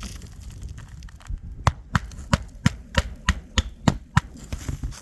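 Hammer nailing down a laminated asphalt shingle: about nine sharp strikes, roughly three a second, starting about a second and a half in.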